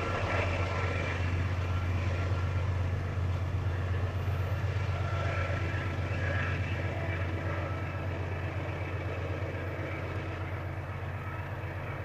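Canadian Pacific GE AC4400CW diesel locomotive with its V16 engine running, a steady low drone.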